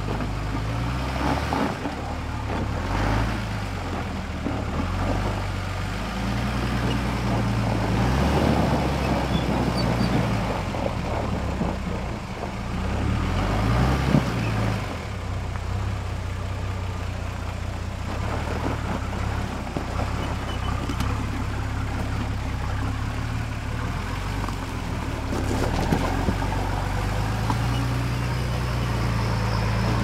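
Modified Nissan Patrol ute's engine revving up and down under load as it crawls over a rocky track, with gravel and rock noise from the tyres. A sharp knock comes about halfway through and another near the end.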